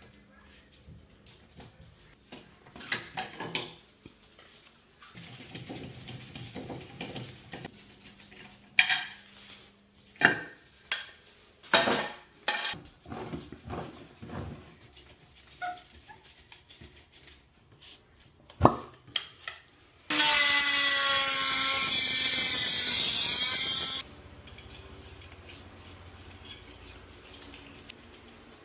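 Clinks and knocks of tools and metal fittings during plumbing work. About twenty seconds in comes a loud rushing hiss with a falling whine, lasting about four seconds and cutting off suddenly, followed by a faint steady hum.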